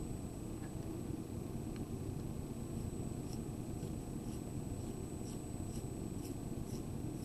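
Coloured pencil stroking lightly on paper: faint, quick scratches about twice a second from about three seconds in, over a low steady room rumble.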